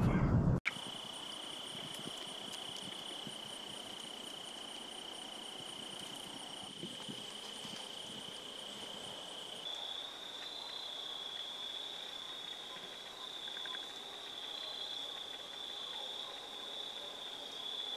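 Crickets trilling steadily in a high, continuous insect chorus, which shifts slightly higher in pitch about ten seconds in.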